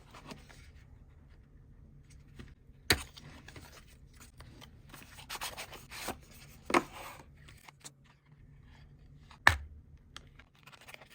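Packaging being handled and opened: soft rubbing and rustling, with three sharp clicks or knocks about three seconds in, near seven seconds and about nine and a half seconds in, the last the loudest.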